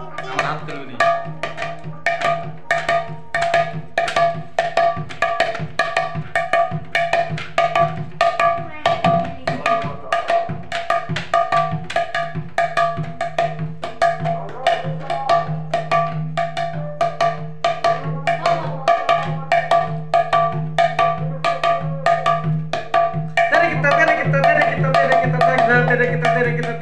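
Khol, the Bengali clay barrel drum, played with the hands in a quick, steady rhythm of evenly repeating strokes, over a steady low ringing tone.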